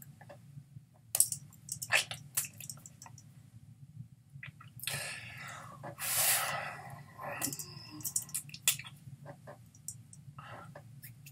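Scattered soft clicks and taps with a longer breathy rustle about five seconds in, from a person signing American Sign Language: hands meeting and arms moving, over a steady low hum.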